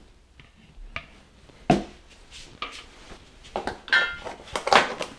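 A silicone spatula scraping beet purée off a plastic blender blade assembly, then scattered clicks and knocks as plastic blender parts and a plastic container are handled and set on a stainless steel counter. The loudest knocks come a little under two seconds in and near the end, with a short squeak about four seconds in.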